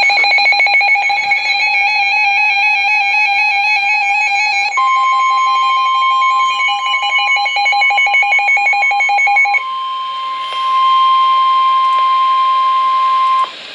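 The steady single-pitch NOAA Weather Radio 1050 Hz warning alarm tone, which signals that an urgent weather warning follows. It starts about five seconds in under a rapidly pulsing electronic alarm. The pulsing stops a little past halfway, and the tone carries on alone until it cuts off near the end.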